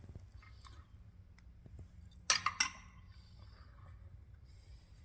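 Metal utensil clinking against cookware: a quick run of three or four sharp clinks a little over two seconds in, with a few faint clicks around it.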